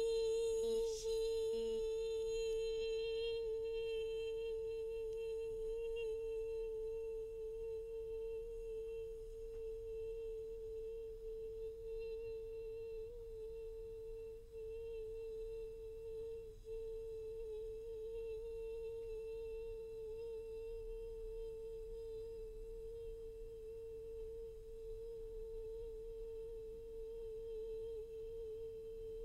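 A high voice holding one unbroken 'boi' note at a steady pitch, the drawn-out vowel of the 'yee boi' challenge sustained on a single breath for as long as possible. It slowly gets quieter.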